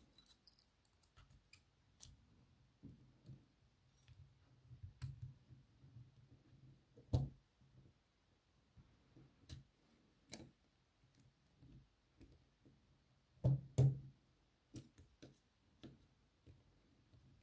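Small metal tools clicking and scraping on a lock cylinder as a brass C-clip is worked open to free the plug: scattered light clicks, with a sharper knock about seven seconds in and two more in quick succession around fourteen seconds.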